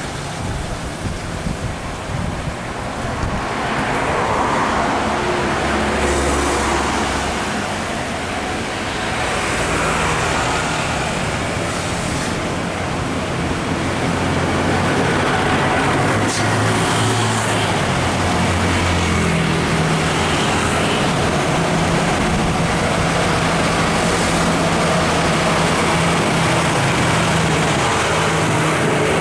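Heavily loaded diesel truck-and-trailer running past with its engine pulling under load, amid road traffic noise. Its low, steady engine note grows stronger from about halfway.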